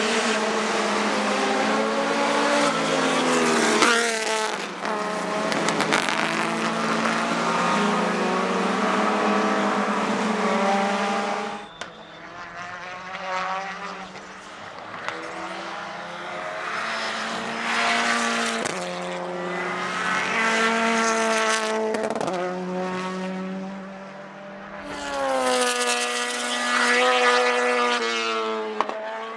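Racing car engines accelerating hard, the pitch climbing steadily and then dropping at each gear change, several times over.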